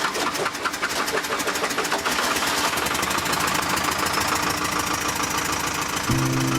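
Small motor engine running with a fast, even firing beat, picking up over the first couple of seconds and then running steadily.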